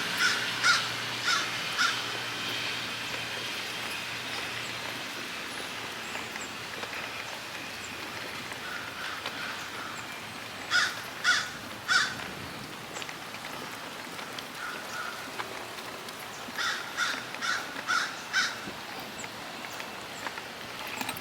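Crow cawing in short series over a steady outdoor background. There are a few caws at the start, three loud caws about eleven seconds in, and a run of about six near the end.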